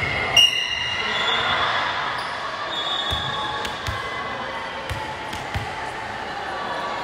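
Volleyball game sounds in a reverberant gym: several dull thuds of a ball striking the floor or hands over the steady hum of the hall, with one brief shrill sound about half a second in.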